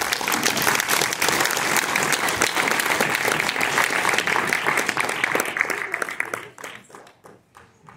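Audience applauding, dense and steady at first, then thinning out and dying away about six to seven seconds in.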